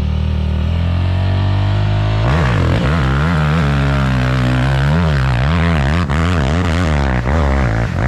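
The engine of an off-road hill-climb machine, running loud and steady, then from about two seconds in revved up and down over and over as the throttle is worked.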